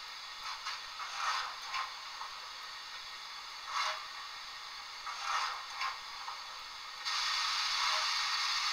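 DCC sound decoder in a stationary model steam locomotive, 'City of Sheffield', playing steam sounds through its small onboard speaker: several short hisses and clanks, then a louder steady hiss starts about seven seconds in.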